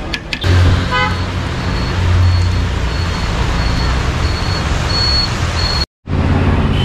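Road traffic: a vehicle engine running low and steady, a short horn toot about a second in, and a faint high beep repeating about every half second. The sound drops out for a moment near the end, then the traffic noise goes on.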